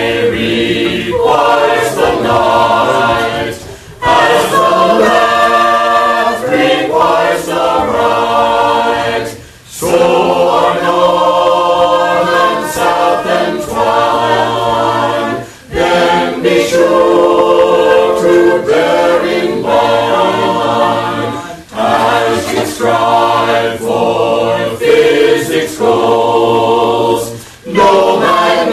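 A group of voices singing together in long held phrases, each lasting about six seconds, with brief breaks between them.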